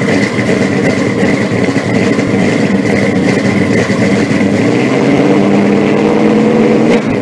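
Car engine running loudly and steadily, its pitch edging up slightly in the second half; the sound cuts off just after the end.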